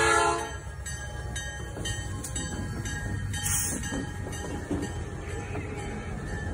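Diesel freight locomotives passing close by. The air horn's chord cuts off about half a second in, leaving the steady low rumble of the engines and the wheels running over the rails.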